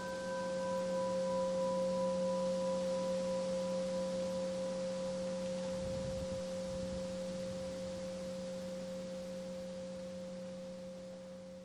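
A meditation bell bowl struck once, ringing out with a low hum and a clear higher tone that fade slowly over more than ten seconds, while its highest overtones die away within the first few seconds.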